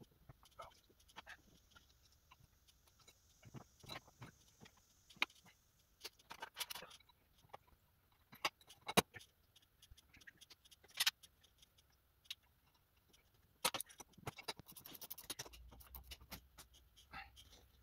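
Scattered light clicks, knocks and scrapes of metal parts as a zero-turn mower's front caster wheel is slid onto its axle and fastened, with a short scratchy scrape near the end.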